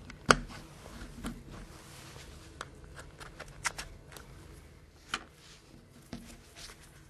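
Light plastic clicks and handling rustle as a mobile phone's battery cover is pried loose with a plastic opening tool and lifted off. A sharp click just after the start is followed by a few softer ones spread through the rest.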